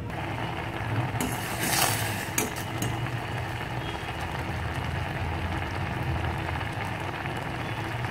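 Instant noodles boiling in a steel pot on the stove: a steady low rumble with bubbling, and a few brief clinks in the first three seconds.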